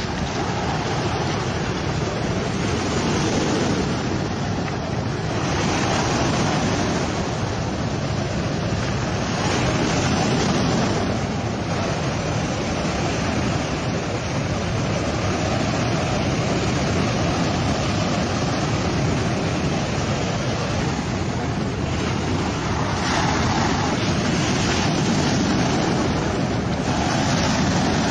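Sea surf breaking and washing up a pebble beach, a steady rush that swells and eases every few seconds, with wind on the microphone.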